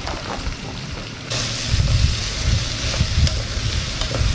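Chillies, green peppers and pork stir-frying in a pan: a steady sizzle that gets suddenly louder about a second in, with dull knocks of stirring in the pan.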